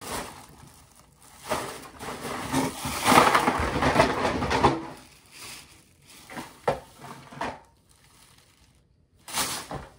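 Thin plastic shopping bag rustling and crinkling as it is lifted and shaken, loudest about three to five seconds in, then a few shorter rustles.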